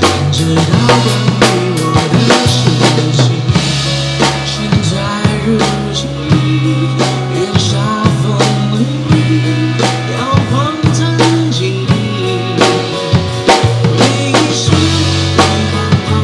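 Acoustic drum kit played live over a recorded backing track: quick bass drum, snare and cymbal hits over steady bass notes, in an instrumental stretch with no singing.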